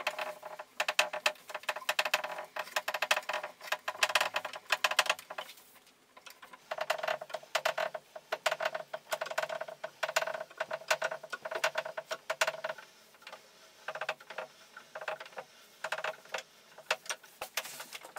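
Wooden scissor lifting table being cranked up by hand, its crank turning the threaded rod that drives the transport block, giving a fast run of mechanical clicks and rattles. The clicking comes in two long spells with a short break between them, then in a few shorter spells near the end.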